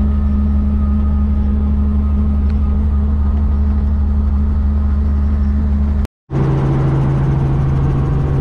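Robinson R44 Clipper II helicopter heard from inside the cabin: a loud, steady drone of engine and rotors. About six seconds in the sound drops out for a moment and comes back as a steady drone at a lower pitch.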